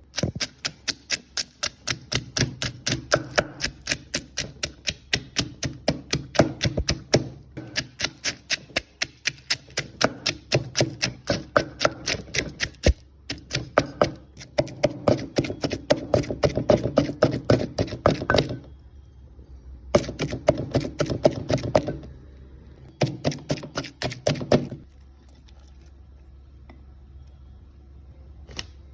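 Pestle pounding steadily in a mortar, about three to four strokes a second, in long runs with short breaks and two shorter bursts near the end: ingredients for pon pu na, a rice-field crab chili dip, being pounded together.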